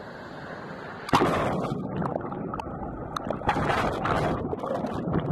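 Whitewater from a breaking ocean wave rushing in, then about a second in a sudden loud crash as the wave hits and rolls over the camera. Churning, bubbling turbulent water follows with the camera under the surface.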